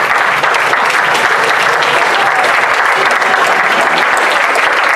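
Theatre audience applauding: many hands clapping in a dense, steady wash of claps.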